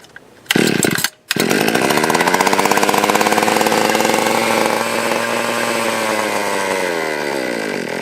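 Stihl 020 AV two-stroke chainsaw engine being started: after a short burst about half a second in, it catches, revs up and settles into a steady, really high idle. The carburetor is set rich after the saw had been starving for fuel.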